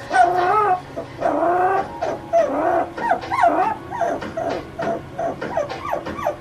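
Young puppy howling and whining in its crate, protesting at being crate trained: a run of wavering cries that bend up and down in pitch, the first two longer, then shorter and quicker ones.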